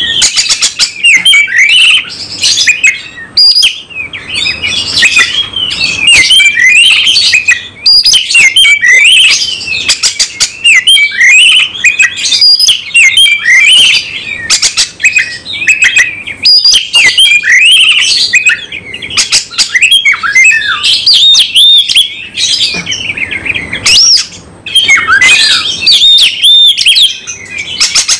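Oriental magpie-robin (kacer) singing loudly in aggressive 'fighting' mode (tarung): a fast, varied stream of whistles, chirps and gliding notes from its full repertoire, with only brief breaks.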